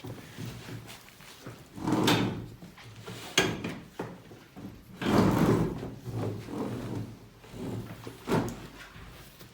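A series of bumps and knocks: a loud one about two seconds in, a sharp click at about three and a half seconds, a longer, heavier bump around five seconds, and a last knock near the end.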